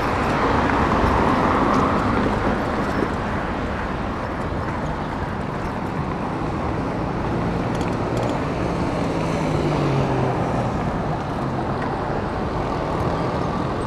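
Steady road-traffic noise from moving vehicles, with a low engine hum that comes through more strongly about two-thirds of the way in.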